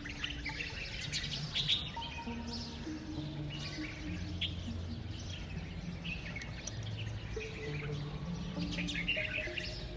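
Birds chirping and twittering in short bursts, over soft background music of long held notes.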